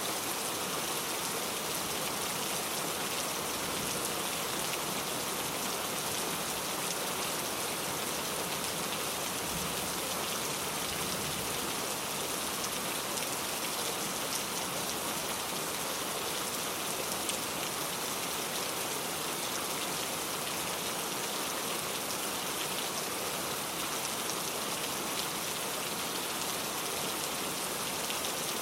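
Heavy rain falling steadily, a dense even hiss with a fine patter of drops throughout.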